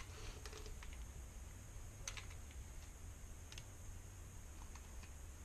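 Faint, scattered small clicks and light taps of gloved hands handling a motorized-bicycle kit engine while working grease into its clutch gear case, over a steady low hum.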